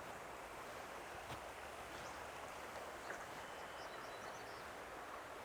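Quiet woodland ambience: a steady low hiss with a few faint, high, short bird notes about three seconds in and a couple of soft clicks.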